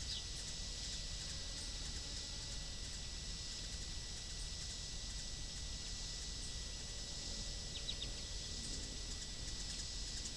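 Steady outdoor ambience: an even high-pitched hiss with a faint constant tone, and a few faint short bird-like chirps about eight seconds in.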